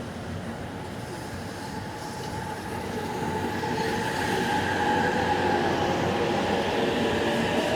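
Train running on the track and drawing closer, growing louder from about three seconds in, with steady high tones ringing over the rumble of the wheels.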